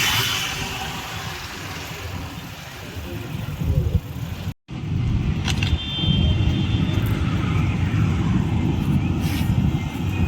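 A motor vehicle running, heard as a dense, uneven low rumble that cuts out briefly about four and a half seconds in.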